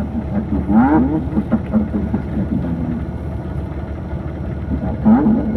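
Bus engine running with a steady low rumble, heard from inside the cabin, with brief voices over it.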